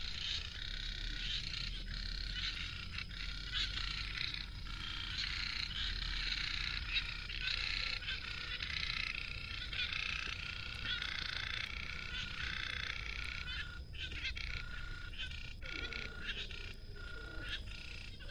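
A dense, unbroken chorus of many frogs calling at once, with a thin steady high note running under it.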